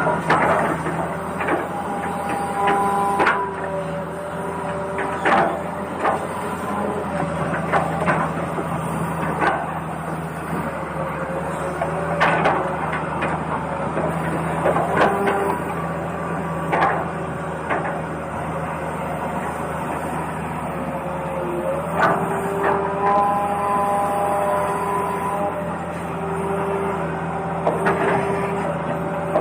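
Toy RC excavator running: its small electric motors whir, the pitch shifting in steps as the arm and tracks are worked, with repeated sharp plastic knocks and clicks.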